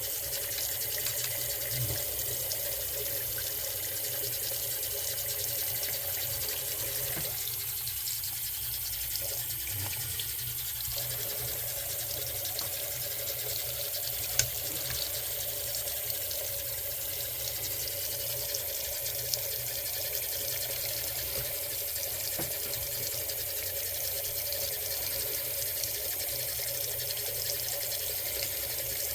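Water running steadily from a faucet into a sink, with two brief clicks partway through.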